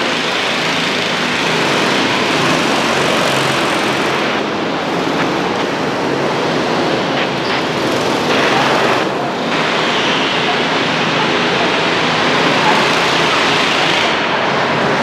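Go-kart engines running on an indoor track, heard as a loud, steady wash of echoing noise with no clear pitch.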